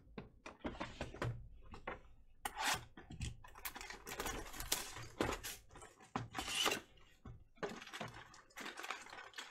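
A cardboard hobby box of trading cards being torn open and its wrapped card packs pulled out and handled, giving irregular crinkling, rustling and small clicks.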